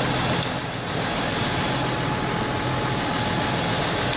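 Tractor diesel engine running steadily at idle, with a few short metallic clicks from the hitch being worked on.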